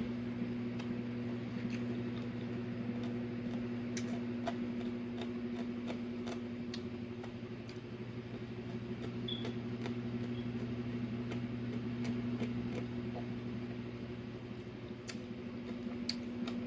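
Chewing and small mouth clicks while eating fried catfish, over a steady motor hum.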